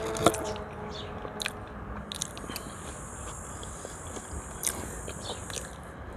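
Close-miked eating sounds: chewing of rye bread and herring, with a sharp click about a quarter second in and scattered smaller clicks of a fork on a china plate.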